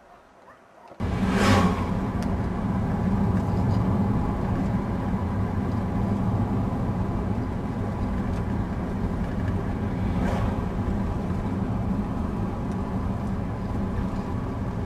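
Steady rumble of a motor vehicle in motion, engine and road noise heard from inside the vehicle, starting abruptly about a second in, with two brief whooshes, one just after it starts and one around ten seconds in.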